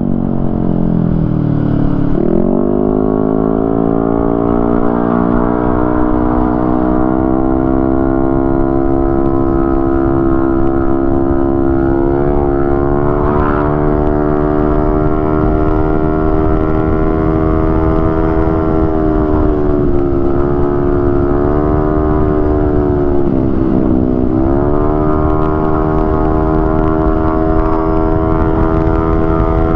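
Yamaha Aerox 155 scooter's single-cylinder engine with an open muffler, running at high, steady revs during a top-speed run on a CVT set up with 11 g and 12 g roller weights, with wind noise underneath. The engine note drops and climbs back about two seconds in, and twice more about two-thirds of the way through.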